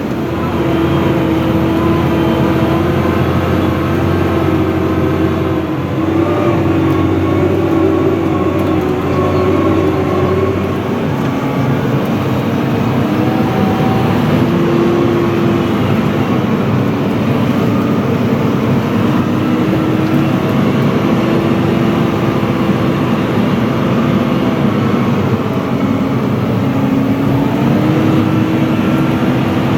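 Fendt 724 Vario tractor's six-cylinder turbo-diesel engine running steadily under load, pulling a six-furrow reversible plough, its note dipping and recovering slightly a few times.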